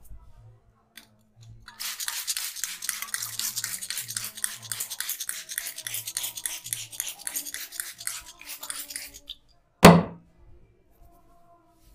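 Barber's hands working quickly over a head's scalp and hair in a head massage, about five rubbing strokes a second for some seven seconds. A single loud slap follows near the end.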